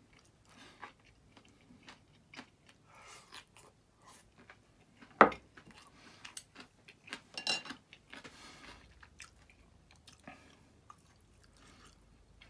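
A person chewing and crunching a mouthful of stir-fried green peppers and minced meat close to the microphone, with scattered small clicks and one much louder sharp click about five seconds in.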